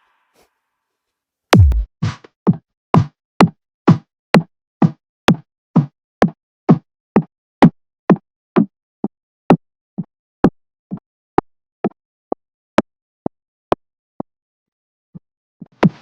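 Electronic music: a lone kick-drum beat, about two strikes a second, each dropping in pitch. It starts after a short silence and thins and weakens toward the end.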